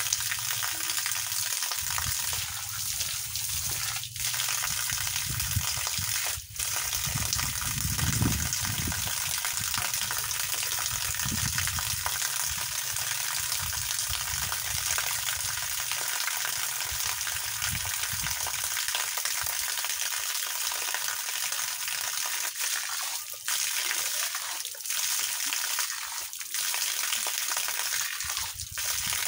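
Water from a hose pouring in a steady stream and splashing onto a person and the ground below, a continuous hissing spatter with a few brief breaks in it.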